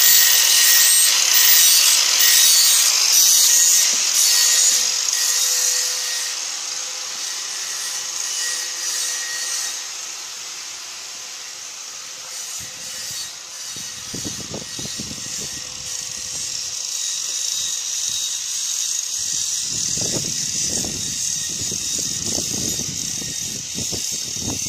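Handheld angle grinder's abrasive disc grinding along a steel machete blade, a steady high hiss that fades after about six seconds. Low, irregular rumbles come in later.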